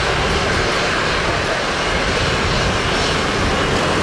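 Airbus A320-232's twin IAE V2500 turbofan engines at takeoff thrust on departure: a loud, steady jet noise.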